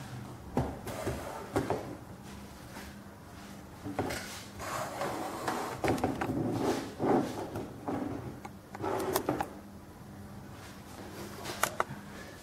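Irregular knocks, clicks and rattles of objects being handled and moved on a table, with a steady low hum underneath.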